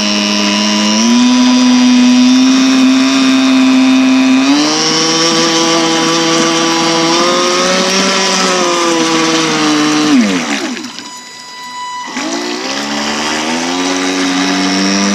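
FT009 RC racing boat's brushless electric motor whining under throttle, stepping up in pitch twice. About ten seconds in the throttle is cut and the whine falls away, then it spools back up a second or two later.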